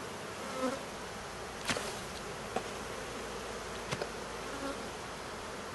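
Honeybees buzzing in large numbers around an opened hive, a steady dense hum, with a couple of sharp clicks or knocks.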